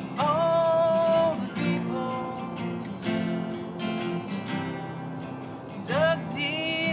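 Two acoustic guitars strummed together with a man singing. A sung note scoops up and is held near the start, and another near the end.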